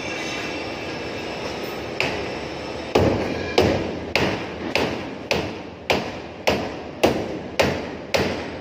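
A hammer striking a sheet-metal air duct section with sharp, ringing blows. There is one blow about two seconds in, then a steady run of about ten blows at roughly two a second.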